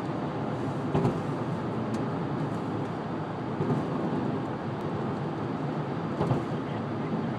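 Steady road and engine noise heard from inside a moving car, with a couple of brief knocks.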